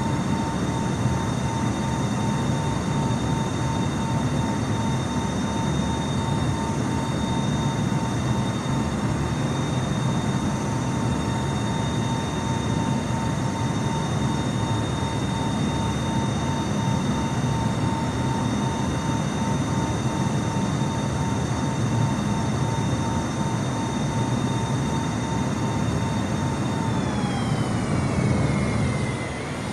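Jet airliner engines running loudly: a steady whine of several tones over a deep rumble. Near the end the whine slides down in pitch and the sound fades.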